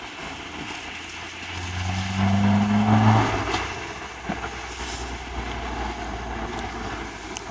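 A motor vehicle's engine hum swells and fades about two to three seconds in, over a steady low rumble of traffic.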